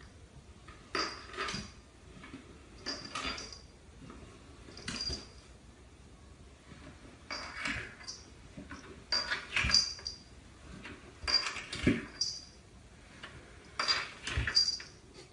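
Short clinks and clatters of small hard objects, coming in clusters of one or two strikes every second or two.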